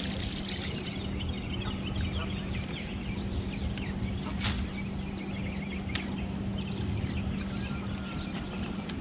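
A bass boat's electric trolling motor hums steadily and cuts off near the end. Many small birds chirp over a low rumble of wind and water.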